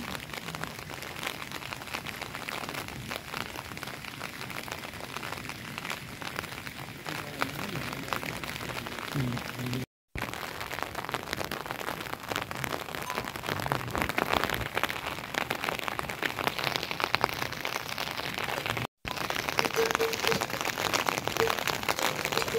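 Steady rain pattering: a dense hiss of fine drops that cuts out briefly twice.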